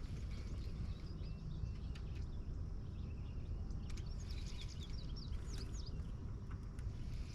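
Small birds chirping in short rising and falling calls, busiest about halfway through, over a steady low rumble.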